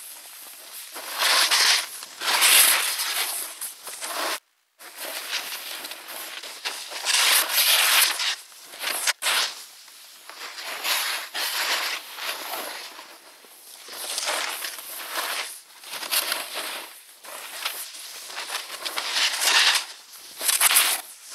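Snowboard edges scraping and carving through snow, a hissing scrape that swells with each turn every second or two. The sound drops out for a moment about four and a half seconds in.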